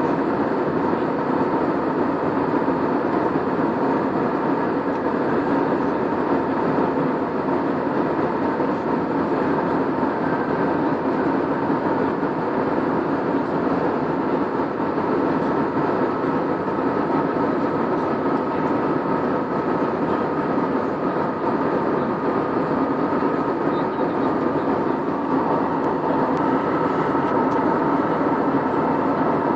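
Airliner cabin noise in flight: the steady rush of the engines and airflow, with a faint steady whine in it.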